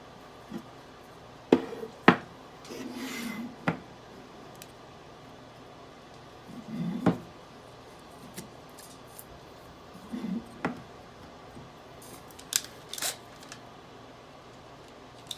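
Scattered knocks, clicks and short scraping sounds of wooden boards and a cordless drill being handled and set against each other. The loudest are two sharp knocks about a second and a half and two seconds in.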